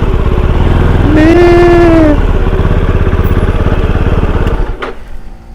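Motorcycle engine running steadily, then cutting out about a second before the end.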